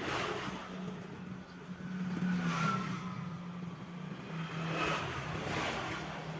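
A small engine running steadily, with swells of louder noise every couple of seconds.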